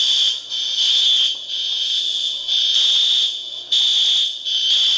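Apartment building fire alarms sounding loudly in repeated, slightly uneven pulses about once a second, a high tone with several overtones. It is a false alarm that a neighbour puts down to a broken alarm.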